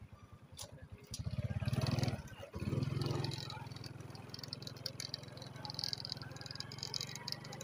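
A small engine running: it revs up about a second in, drops off briefly, then settles into a steady run.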